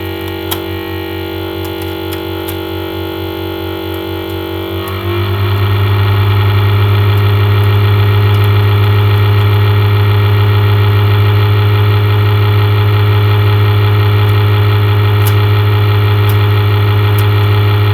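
A steady low hum with many overtones, which gets clearly louder about five seconds in and then holds.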